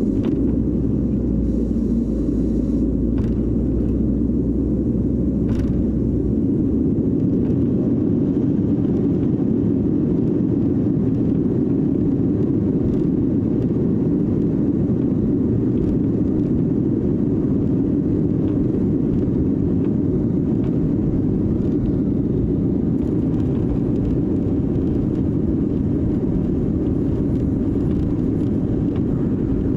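Cabin noise inside a Sukhoi Superjet 100 taxiing at low thrust: its SaM146 turbofans and the airframe make a steady rumble, heard from a window seat beside the wing. A deeper hum underneath stops about six seconds in.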